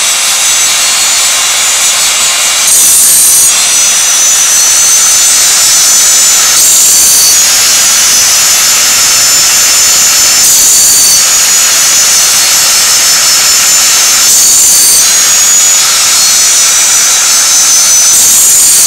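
A homemade automatic bandsaw blade sharpener runs, its grinding wheel giving a loud steady hiss with a thin high whine. Every four seconds or so the grinding swells briefly as the blade is indexed and the wheel takes the next tooth.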